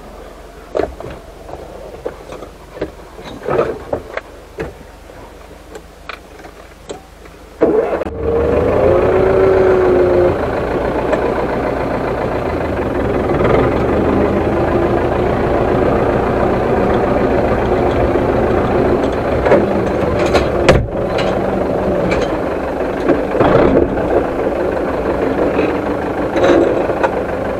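Zetor tractor's diesel engine starting about eight seconds in, with a brief rising whine as it catches, then running steadily. Before it, a few scattered clicks and knocks.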